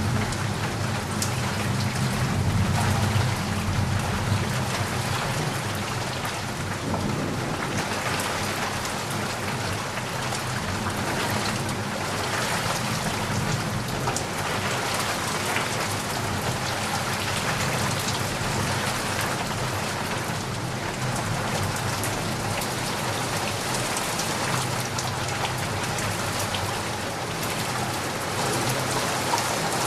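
Steady rain falling in a continuous patter, with a low rumble of distant thunder in the first few seconds and again near the end.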